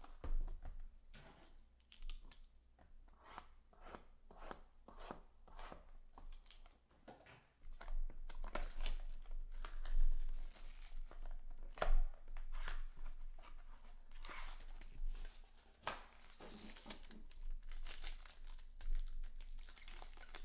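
Clear plastic shrink-wrap being torn and peeled off a box of baseball cards. It starts as a run of small crackles and turns into louder, denser crinkling with sharp snaps from about eight seconds in. Near the end a foil card pack crinkles in the hands.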